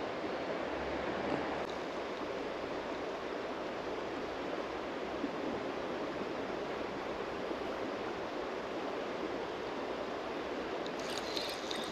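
Steady rush of flowing river water, with a few faint ticks near the end.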